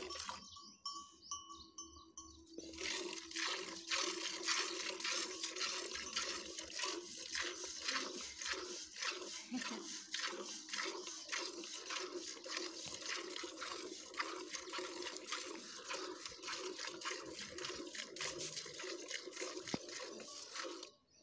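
Cow being milked by hand into a metal bucket: milk squirts hitting the milk already in the pail in a steady rhythm of about two strokes a second. The strokes start about three seconds in, after a short quieter pause.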